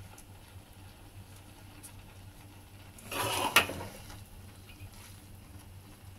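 A metal spatula scraping along a wok and tossing stir-fried noodles: one brief scrape about three seconds in, ending in a sharp metallic clink. Otherwise a faint steady hum.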